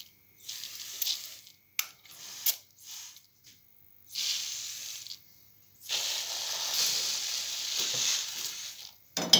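Water spraying from a hand-held watering wand onto seedling trays in several bursts, the longest about three seconds near the end, with a couple of sharp clicks in between.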